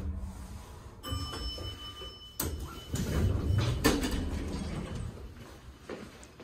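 Dover Traditional elevator doors sliding open on arrival: a steady high tone begins about a second in and a sharp click comes as the doors move. Then come footsteps and rustling as someone steps out.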